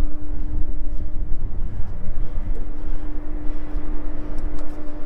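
Wind buffeting the microphone, a rough, uneven low rumble, with a steady low hum running underneath it.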